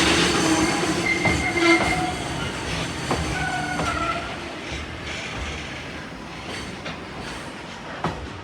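Train running through the station with squealing wheels, the sound fading as it moves away, then a few sharp clacks from the rails near the end.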